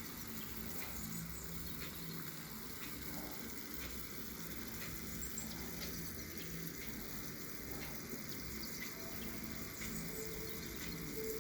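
Water boiling in a saucepan with a whole garlic bulb in it: a steady boil with faint scattered pops.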